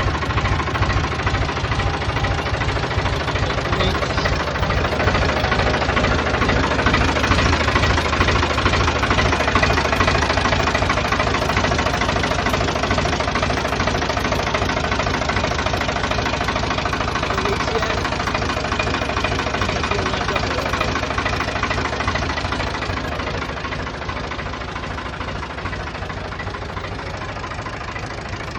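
Ford 201 cubic-inch diesel engine of a Ford 4610 tractor running steadily after an oil change, a dense, even diesel clatter that eases somewhat quieter near the end.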